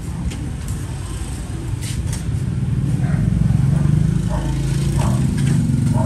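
Low, steady engine rumble of passing road traffic, swelling about halfway through, with a few light clicks in the first two seconds.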